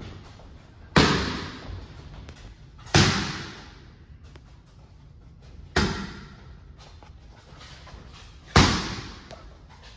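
Four single boxing-glove punches landing on focus mitts, each a sharp smack with a short echo, spaced a few seconds apart.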